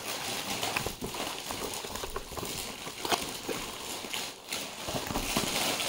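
Packaging rustling with scattered light knocks and clicks, from box and car gear-shift knobs being handled.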